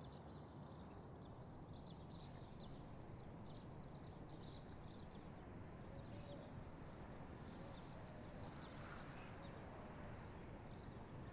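Faint steady background hiss with small birds chirping now and then.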